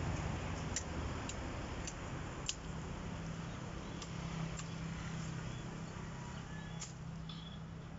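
Machete chopping into moringa (malunggay) branches: a run of sharp chops about half a second apart, then a few more spaced-out strikes. A steady low hum runs underneath.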